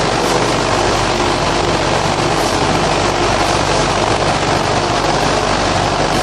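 Concrete block-making machinery running steadily: an electric motor's constant low hum under a dense, even mechanical din.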